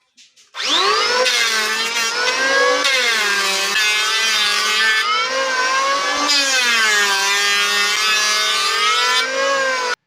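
Electric wood planer's motor spinning up about half a second in and then running with a steady high whine, its pitch sagging and recovering a few times; the sound cuts off abruptly near the end.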